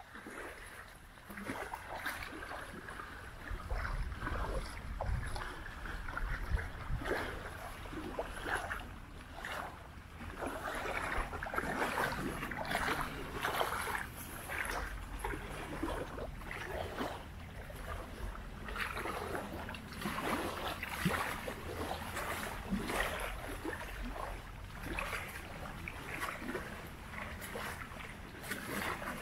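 Small waves lapping and splashing irregularly against the lake shore, with wind rumbling on the microphone.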